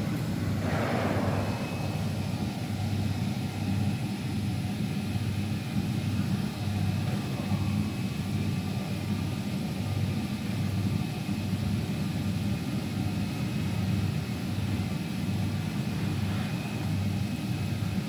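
Steady low hum of running factory machinery, throbbing slightly, with a brief noise about a second in.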